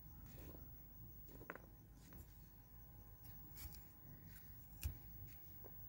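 Near silence, broken by a few faint snips of a small curved knife cutting through flat bean pods, the sharpest just before five seconds in.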